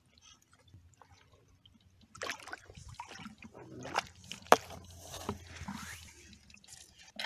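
Wet sloshing and squishing as a live squid is dropped into a bucket of water, starting about two seconds in, with one sharp knock about halfway.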